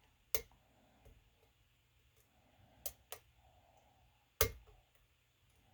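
Lock-picking tools working the pin stack of a Euro cylinder lock under tight tension: four sharp metallic clicks, the loudest about four seconds in, with faint scraping of the pick between them.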